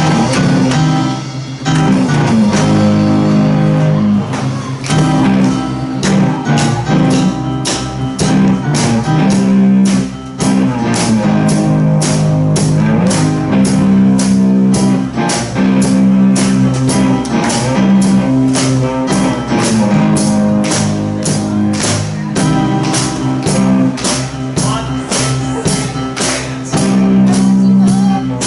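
Live rock band playing a song: guitar and bass chords over a drum kit keeping a steady beat of about two strokes a second.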